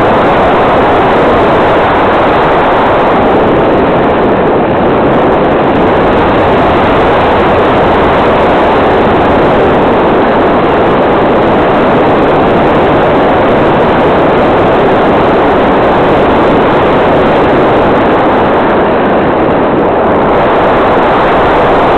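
Loud, steady rush of airflow and motor-and-propeller noise, heard from a camera mounted on a radio-controlled L-4 Grasshopper model plane in low, fast flight, with no distinct engine note standing out.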